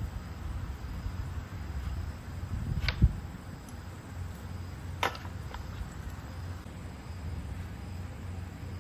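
Two sharp knocks about two seconds apart, the first the louder, with a fainter click just after the second, over a steady low rumble: parts or tools being handled during repair work.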